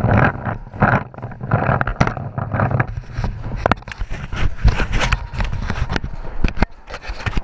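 Running footsteps and clothing and gear rubbing against a body-worn camera as a paintball player sprints on artificial turf, then drops down onto it. Irregular knocks, thuds and scrapes on the microphone.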